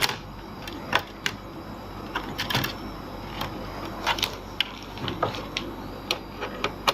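Irregular sharp clicks and light taps from hands working on a laptop's plastic back cover, coming more often toward the end.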